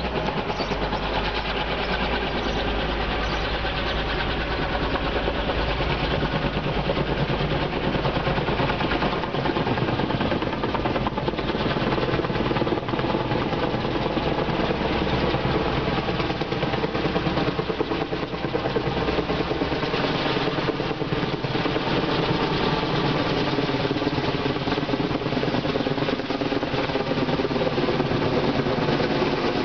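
Kaman K-MAX K-1200 helicopter flying in closer, its intermeshing twin rotors and turbine engine running steadily. A deep low hum underneath stops about twenty seconds in.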